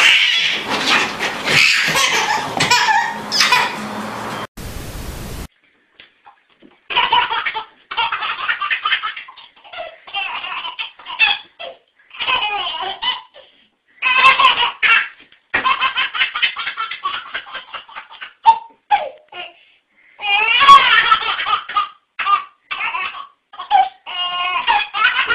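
Babies' belly laughs and giggles in repeated bursts. A pause of about two seconds falls around five seconds in, after which a second baby laughs in fits.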